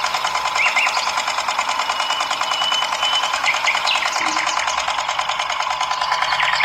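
Small motor of a miniature model hand tractor running steadily with a fast, even rattling buzz, driving a belt and a toy water pump. A few short, faint high chirps sound over it.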